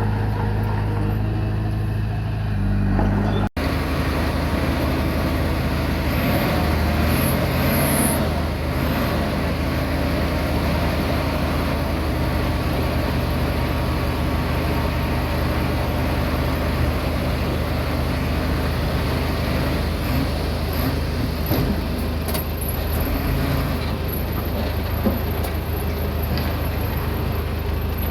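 Komatsu D20P bulldozer's diesel engine running steadily under load, with clattering noise from the machine working; the sound breaks off abruptly about three and a half seconds in and resumes, fuller and noisier.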